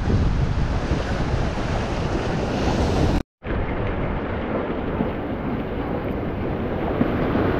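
Waves breaking on the beach, with wind buffeting the microphone. The sound cuts out for a moment a little over three seconds in, then the surf and wind carry on duller.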